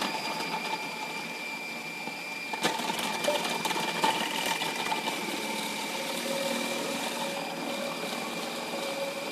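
Food processor motor running steadily and loud with its fine shredding disc spinning, a steady high whine over a grinding rattle as carrots are pressed down the feed tube. One sharp click about two and a half seconds in.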